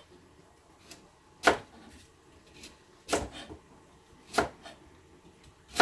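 Kitchen knife cutting a vegetable on a plastic cutting board in a rolling cut, the vegetable turned between strokes. There are four sharp knocks of the blade on the board, about one every one and a half seconds, with a few fainter ticks between them.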